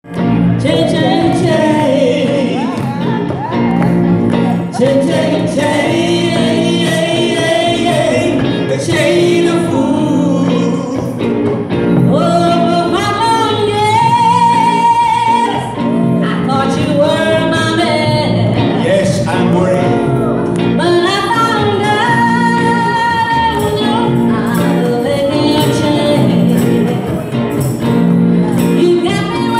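Live band playing a song with a woman singing lead into a microphone, backed by electric guitars and a cajon.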